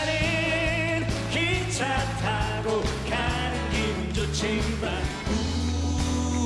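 Music: a song performed by a band with acoustic guitars, with a singing voice over a steady accompaniment.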